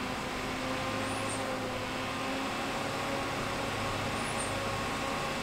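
Small solar-powered computer cooling fan running steadily: a motor hum of several steady tones over the whir of moving air.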